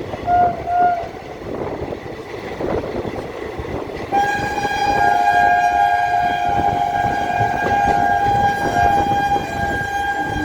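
Train horn giving two short toots, then a long steady blast from about four seconds in, over the running noise of a moving train.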